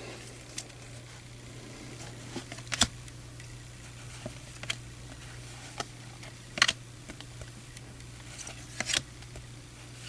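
Baseball trading cards being flipped through by hand: a short sharp snap of card against card about every two seconds, over a steady low hum.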